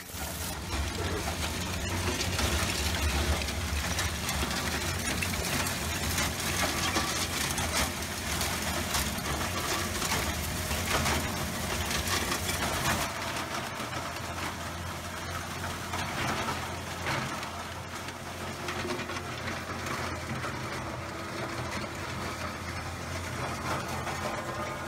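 Hammer mill driven by a 15 hp electric motor, running steadily with a low hum while oyster shells are fed in by a cleated belt conveyor and rattle and crunch through it. The rattling turns duller and less hissy about thirteen seconds in.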